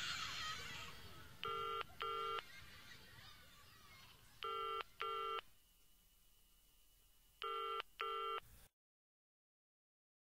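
Telephone ringing in a double-ring pattern: pairs of short electronic beeps, one pair about every three seconds, three times, over a fading background wash. It cuts off to silence near the end.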